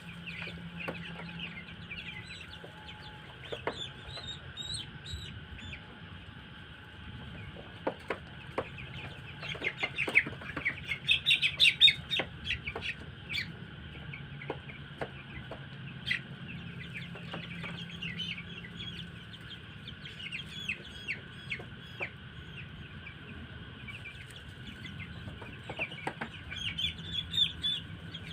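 A flock of two-week-old poultry chicks cheeping and clucking, many short high calls at once, busiest about halfway through, over a steady background hum.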